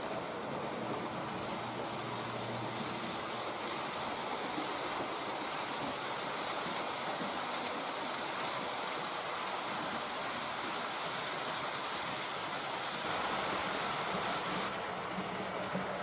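H0-scale model train running on the layout: a steady whirring of motor and wheels on the track, with a slight change in tone near the end.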